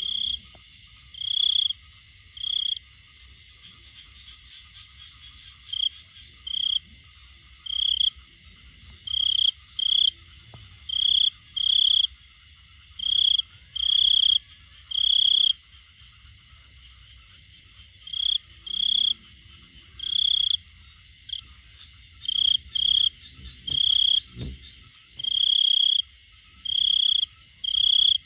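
Male cricket's calling song, the chirping it makes to attract a female: loud, high-pitched trilled chirps, each about half a second to a second long, coming in irregular runs with pauses of up to a few seconds. A faint, steady, high hum sits beneath.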